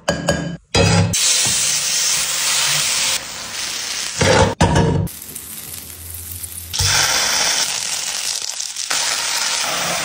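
Butter sizzling in a hot frying pan: a steady frying hiss that stops and starts abruptly several times, with a brief louder burst about four and a half seconds in.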